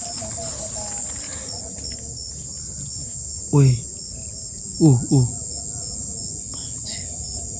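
Night chorus of crickets, a steady high-pitched trill, with two short falling calls about a second apart near the middle.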